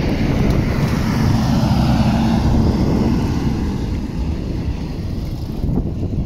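Modern low-floor articulated tram passing on street track: the running noise and a steady hum from its drive build to a peak about two seconds in, then fade as it pulls away.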